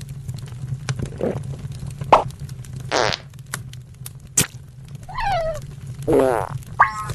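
Cartoon sound effects: a steady low buzz with short squeaky pitch slides and sharp clicks over it, one wavering squeak about five seconds in and a falling one just after.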